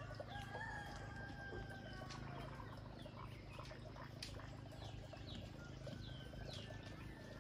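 Rooster crowing once, a drawn-out call over the first two seconds or so, with small birds chirping here and there.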